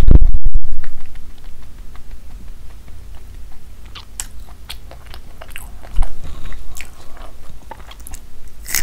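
Close-miked mouth sounds of a person eating by hand: wet chewing with many small clicks and smacks, then a crisp bite near the end. It opens with a very loud, low puff of air into the microphone from pursed lips, and a dull thump comes about six seconds in.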